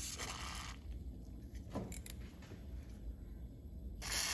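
WD-40 aerosol sprayed through its straw into a drilled bolt hole as cutting lubricant before tapping: a short hiss at the start and another near the end, with a few light clicks in between.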